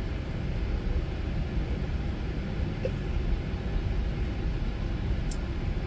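Steady low rumble of cabin noise inside a Boeing 777-300 airliner, from the engines and air conditioning.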